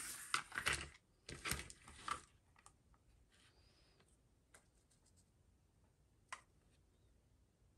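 Paper rustling as a sheet piled with balsa shavings is slid across a cutting mat, in two bursts over the first two seconds, then a few light taps and clicks as a small digital scale and a carved balsa fuselage shell are set down.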